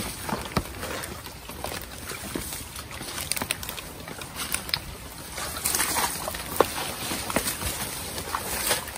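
Footsteps sloshing through shallow water and mud, with wet grass and leaves brushing and snapping as someone pushes through dense undergrowth. The sound is made up of irregular splashes, rustles and small clicks, a little louder about six seconds in and near the end.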